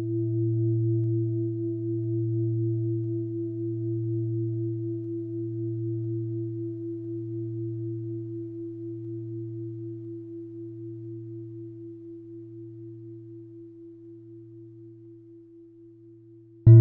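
A deep bell tone, struck once, ringing out with a slow wavering throb and fading steadily. It is struck again, loud, right at the very end.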